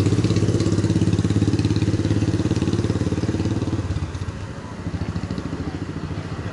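Motor scooter passing close by, its small engine running at a steady pitch, then fading away about four seconds in.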